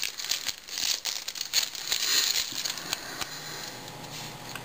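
Shiny foil wrapper of a 2010 Topps Series 1 baseball card pack crinkling and tearing as it is peeled open by hand. The rustle thins out after about three seconds as the cards are slid out.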